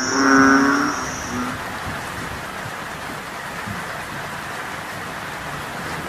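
Heavy rain pouring steadily onto trees and broad papaya leaves. The last held note of a piece of music fades out during the first second or so.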